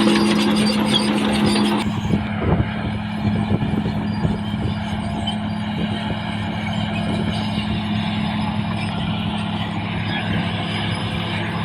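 CAT D6R XL bulldozer's diesel engine running at a steady pitch, with clanking from the machine as it works. About two seconds in, a high rattling hiss drops away and the engine note carries on alone.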